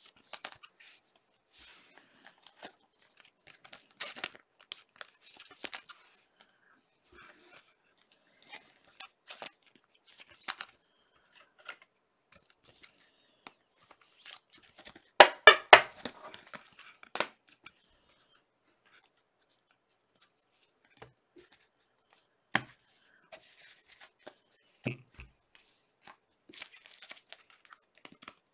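Trading-card packs being torn open and cards handled: scattered rustles, slides and light clicks, with a loud ripping burst about halfway through. Two sharp knocks on the table follow a few seconds later.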